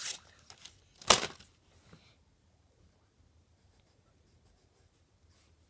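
Brief rustling and handling noises close to the microphone, the loudest about a second in, then quiet room tone for the rest.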